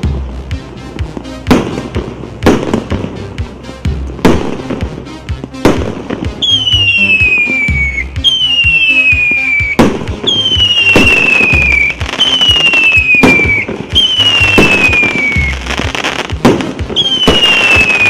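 A 100-shot firework battery (cake) firing. Sharp shots come about once a second at first, and from about six seconds in the shots carry whistles: six falling whistles in a row, each about a second and a half long, with a hiss under them.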